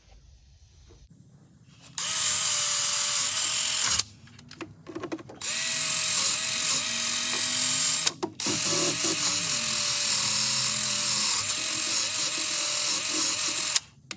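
Small handheld air tool spinning an abrasive pad or brush against an intake manifold's carburetor mounting surface to scour off old gasket and tape residue. It runs in three bursts of a few seconds each, the longest near the end, and its pitch dips briefly as it is pressed into the metal.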